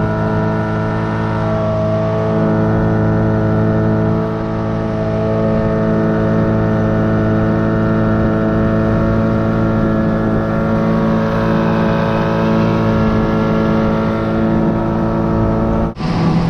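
Outboard motor on a jon boat running steadily at cruising speed, a constant engine drone. It dips slightly about four seconds in and breaks off for a moment near the end.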